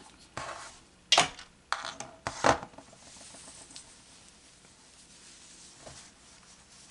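Metal thread snips snipping through the yarn end and clicking as they are handled: several sharp clicks in the first two and a half seconds. Then only faint rustling of the crocheted cowl being handled.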